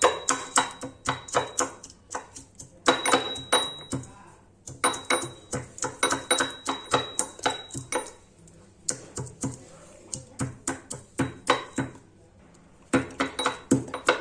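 Pestle pounding whole spices and ginger in a mortar: rapid sharp strikes, about four a second, in several bursts with short pauses between them. The spices are being crushed coarsely.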